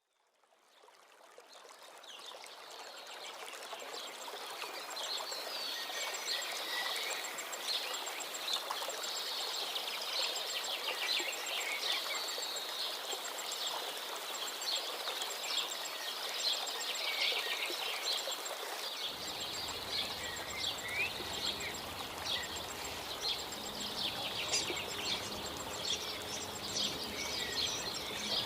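A chorus of many small birds chirping and trilling over a steady background hiss, fading in over the first few seconds. About two-thirds of the way in, a low rumble comes in abruptly under the birdsong.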